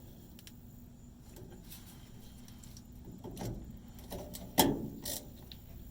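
Hand work on fuel-line fittings being tightened: faint handling clicks, then two sharp knocks about four and a half and five seconds in.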